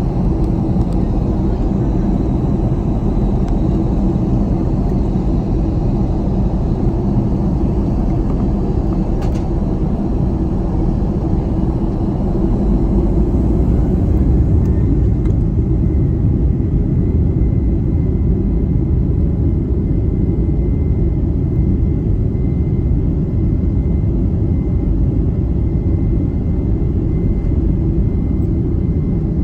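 Boeing 737-800 cabin noise from a window seat over the wing: a steady low rumble of the CFM56-7B engines, a little louder around the middle. A faint steady high whine comes in about halfway.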